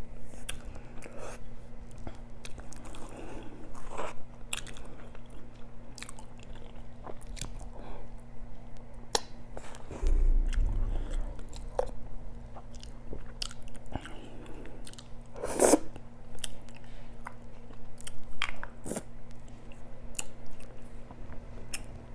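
Close-miked eating: chewing and biting food, with many short wet mouth clicks and smacks. A refrigerator hums steadily underneath, with a brief low rumble about ten seconds in.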